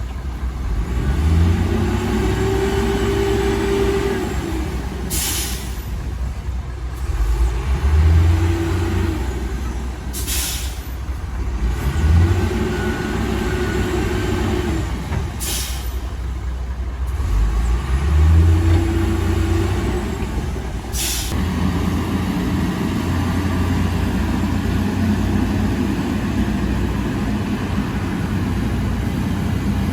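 Heavy diesel earthmoving machinery working: the engine revs up and eases off four times, about every five seconds, and each rise ends in a short sharp hiss of released air. Over the last third the engine runs more steadily.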